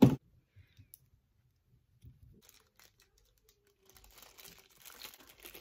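A loud knock close to the microphone at the start. From about four seconds in, a thin clear plastic bag crinkles as it is handled and opened.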